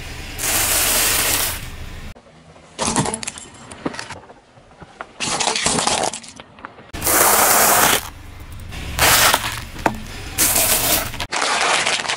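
Car tyre rolling over and crushing food and small objects, a pile of popcorn, then small scattered items, then a plastic tub of tomatoes, heard as about six separate bursts of crunching and cracking, each about a second long, with abrupt cuts between them.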